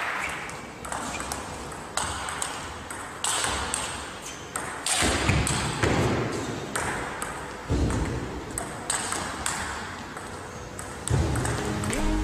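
Table tennis rally: the ball striking the players' bats and bouncing on the table, a quick irregular series of sharp clicks.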